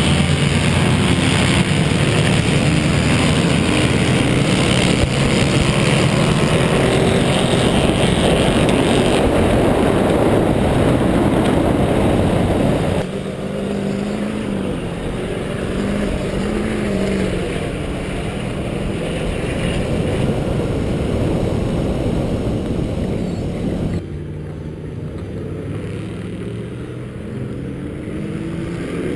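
Diesel pickup truck engines revving and running hard on sand drag runs, in three stretches that cut off abruptly about 13 and 24 seconds in. The first stretch is the loudest. Near the end, a Chevy pickup's engine runs under heavy throttle while blowing black diesel smoke.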